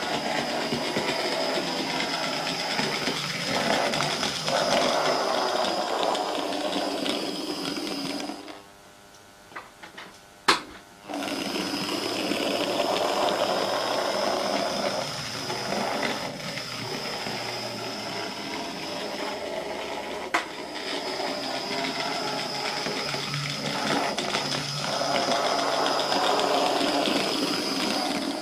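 Electrotren Taff Vale Railway 0-6-0 tank engine model running along the track: the five-pole electric motor whirring with a steady high whine, along with the sound of the wheels on the rails. It falls quiet for a couple of seconds around the middle, with one sharp click, then runs on. The owner calls the run good but not smooth.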